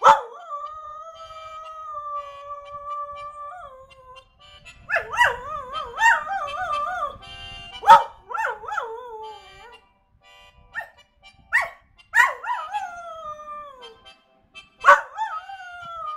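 Dog howling in a series of long drawn-out notes: the first one held steady for several seconds, the later ones wavering up and down and falling away at the end, with short pauses between them.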